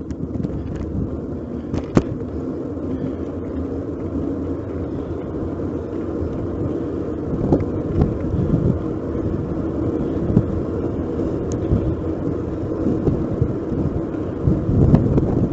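Riding noise of a Giant Cross City 2 hybrid bicycle heard through a bike-mounted action camera: steady tyre and wind rumble, with a few sharp rattling clicks as it goes over the road.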